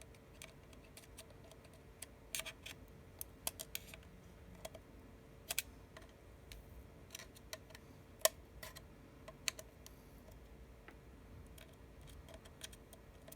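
Small metal tools, a precision screwdriver and tweezers, clicking and tapping irregularly on an iPhone 6s's internal parts and screws, with one sharper click about eight seconds in. A faint steady hum sits underneath.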